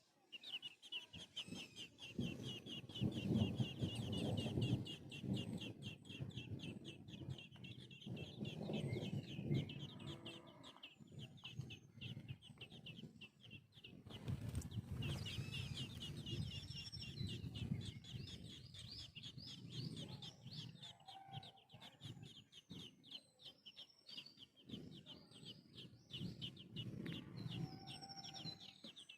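Baby birds cheeping rapidly and without pause in a high, thin register, as young birds begging for food. Louder low sounds come and go underneath.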